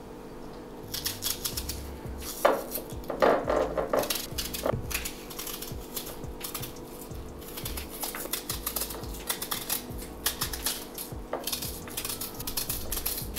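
Metal utensils and dishes clinking and clattering in many short, quick taps, with a few louder clanks about two and a half to four seconds in.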